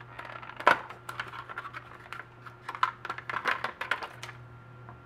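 Packaging being opened by hand: a phone case's cardboard retail box and clear plastic tray handled and pulled apart, giving scattered clicks, scratches and plastic crinkling. The sharpest click is about a second in, and a quicker run of clicks and rustles follows past the middle.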